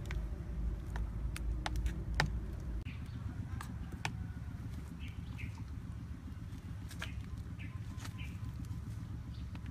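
Spoon clicking against a ceramic bowl and a bell pepper while filling is scooped and stuffed into hollowed green bell peppers, about a dozen sharp clicks spread irregularly. Birds chirp briefly in the background, and a low rumble drops away about three seconds in.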